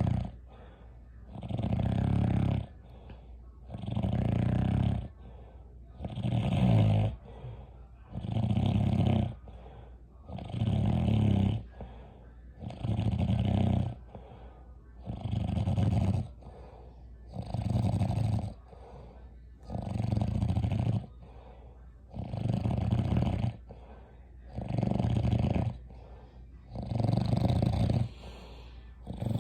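Rhythmic snoring: one snore about every two seconds, each lasting about a second, with quiet gaps between.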